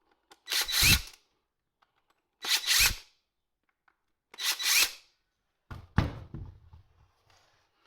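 A power screwdriver running in short spurts of about half a second, three times, each with a faint rising whine as it backs out the screws holding a Bosch GWS angle grinder's gear head. Near the end comes a brief clatter of metal parts being handled.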